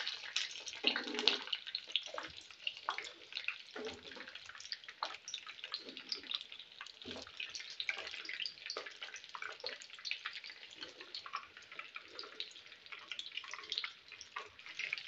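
Breaded cheese sticks frying in hot oil in a pan: a steady sizzle full of fine crackles as the coating turns golden.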